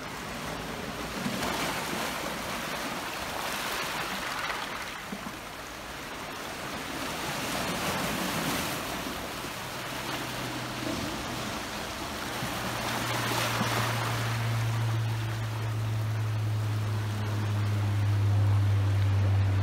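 Sea waves washing in over rocks and shingle, swelling and falling back every four or five seconds. About halfway through, a low engine drone joins them and grows louder toward the end, most likely an aircraft passing overhead.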